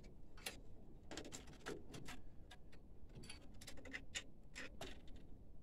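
Faint, irregular small clicks and ticks of plastic wire connectors and ribbon cables being handled and unplugged inside a printer.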